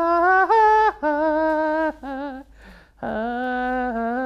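A man humming a slow wordless tune in long held notes about a second each. The tune steps down in pitch, with a short wavering note near the middle and a long low note held through the last second and a half.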